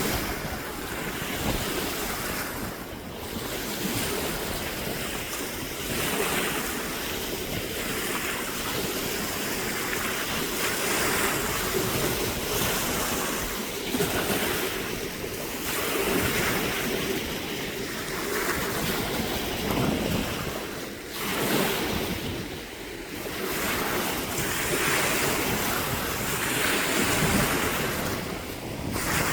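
Sea waves washing in, surging and ebbing every few seconds, with wind buffeting the microphone.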